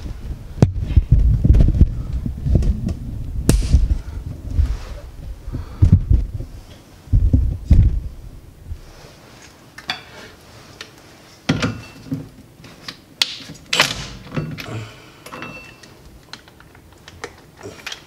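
Irregular low thuds and bumps, then scattered knocks and a few short metallic clinks, from the camera being moved about and hand tools being picked up and set down on cardboard. No impact wrench is running.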